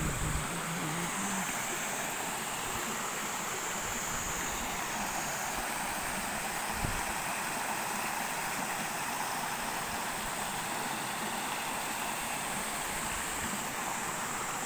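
Shallow stream water rushing steadily over a low cascade of rocks. A brief low thump about seven seconds in.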